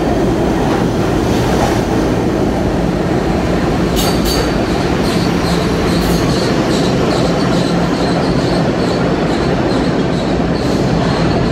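R68A subway train pulling out of the station into the tunnel: steady loud wheel-and-rail rumble with a few sharp clacks, and a high wheel squeal that sets in about four seconds in and carries on.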